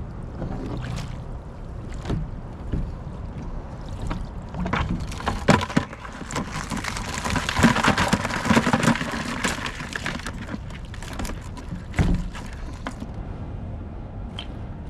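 Knocks and clatter of a wire crab trap being handled and reset, over a low steady rumble. A louder rushing, rattling stretch comes about seven to ten seconds in, and a single sharp knock about twelve seconds in.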